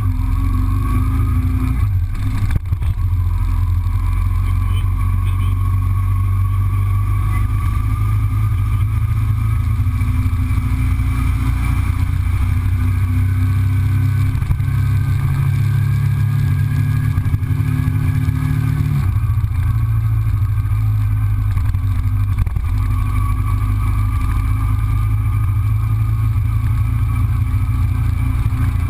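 Motorcycle engine running as the bike rides along a street, recorded from a camera on the bike. Its pitch rises slowly, then drops abruptly about two-thirds of the way through.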